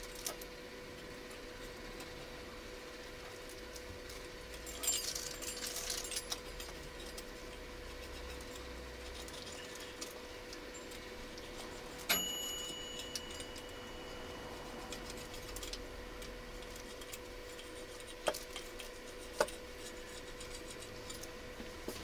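Pizza being sliced with a pizza cutter: a crackly run of small crunches and clicks about five seconds in, a single metallic clink that rings briefly around twelve seconds, and two sharp clicks near the end, over a steady faint hum.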